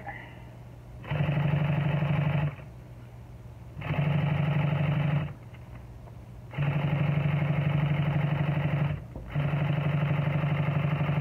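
Industrial sewing machine stitching a leather upholstery seam in four runs of one to three seconds each, stopping briefly between them. A low motor hum carries on through the pauses.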